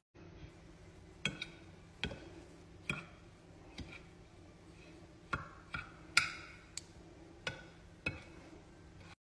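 Metal spoon clinking and scraping against a ceramic plate while stirring ground herbal powder, about ten light clicks at an irregular pace.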